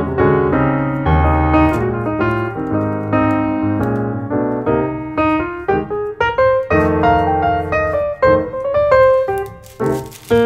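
Background piano music: a melody of struck notes over low chords.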